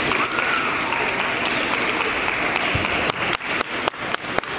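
Audience applause, a dense continuous clapping that thins out into scattered individual claps over the last second and a half.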